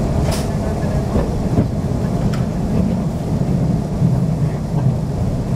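Passenger train running, heard from inside the carriage: a steady low rumble of wheels and running gear, with a couple of faint clicks.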